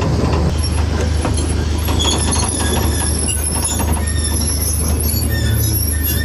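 Narrow-gauge train rolling past on steel rails, its wheels squealing in scattered high squeals with clicks over a steady low rumble.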